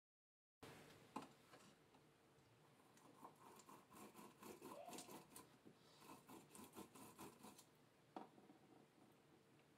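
Half a lemon twisted back and forth on a hand lemon squeezer: faint rubbing, scraping and squelching in spells, with a sharp tap about a second in and another near the end.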